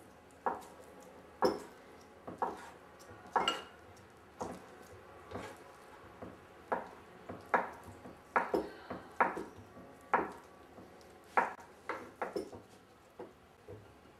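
Large kitchen knife chopping mozzarella into small pieces on a wooden cutting board: irregular knocks of the blade striking the board, about one or two a second.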